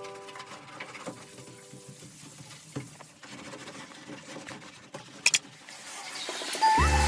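Background music fades out, leaving faint irregular patter and light clicks, with a sharp double click about five seconds in; music comes back in near the end.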